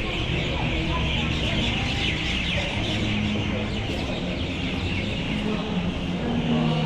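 A flock of birds chattering, many overlapping high chirps and calls all at once, over a low hum of background noise and faint voices.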